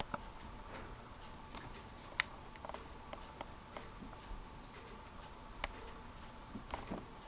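Soft scuffs and scattered faint clicks of two cats play-fighting on carpet, irregular rather than a steady tick, over a faint steady hum.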